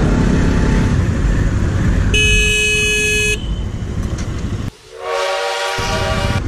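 A vehicle horn sounds one steady blast of a little over a second, about two seconds in, over loud engine and road noise from a moving motorcycle. Near the end the sound cuts off abruptly and a different steady pitched sound follows.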